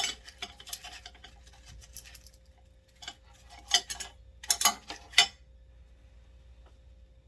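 A metal spoon clinking and scraping against a dish of thick, cheesy baked dip. It gives a sharp clink at the start, scattered light taps, then two quick clusters of clinks around the middle before it stops.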